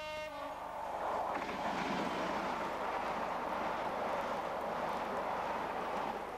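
A DRS Class 66 diesel locomotive's two-tone horn ending on its low note, then the locomotive and its intermodal container wagons passing close by at speed with a steady rushing rumble, dropping away near the end.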